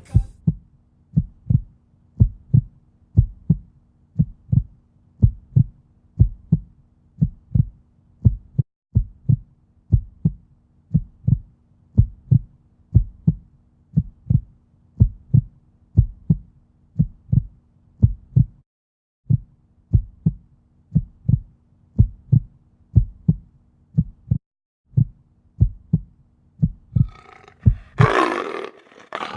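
Steady rhythmic low thumps, about two a second, over a faint steady low drone, broken by a few short pauses: a pulsing heartbeat-like beat in the soundtrack. Near the end a louder rushing sound comes in over it.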